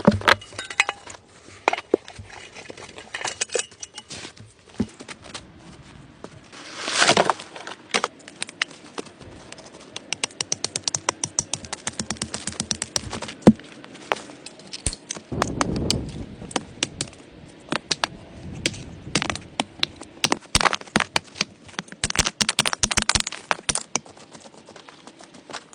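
Irregular snaps, knocks and rustling of sticks and brush being handled, with louder swishing rustles about seven seconds in, around sixteen seconds and again near twenty-three seconds.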